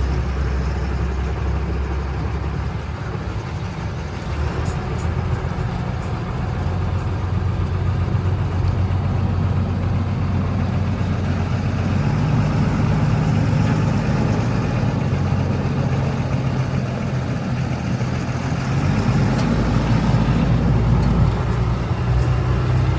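Diesel engine of an ex-military LMTV truck running as it drives slowly up a driveway. Its low drone shifts upward in pitch about halfway through and again near the end.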